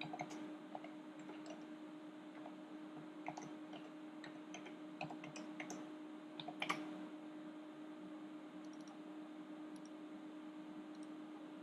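Faint computer keyboard and mouse clicks at irregular intervals as a file path is typed and selected, with a slightly louder cluster of clicks a little past halfway. A steady low hum runs underneath.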